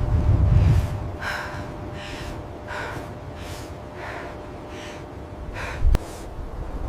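Heavy, quick breathing, one breath about every three quarters of a second. A low rumble comes in the first second, and there is a single sharp click near the end.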